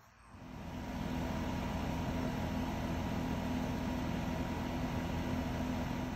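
A steady mechanical drone with a low, even hum, starting about half a second in and holding unchanged.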